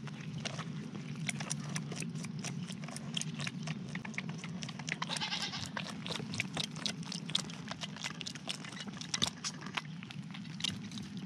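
Goat kid suckling on a feeding bottle's nipple: a quick, irregular run of wet clicks and slurps, with a faint bleat about five seconds in.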